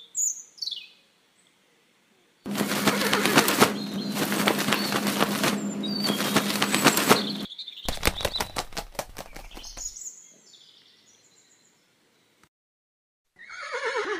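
Birds chirping briefly, then horses galloping: a dense rush of hoofbeats for about five seconds, followed by a couple of seconds of evenly spaced hoof thuds. Near the end a horse neighs, its pitch falling.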